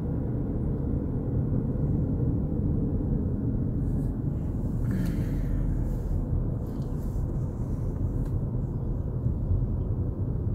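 Steady low road and engine rumble heard from inside a moving car, with a brief hiss about five seconds in.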